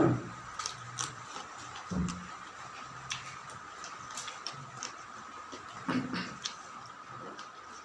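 A person eating close to the microphone: chewing and lip-smacking with many small sharp clicks scattered throughout, and a few heavier low mouth sounds near the start, about two seconds in and about six seconds in.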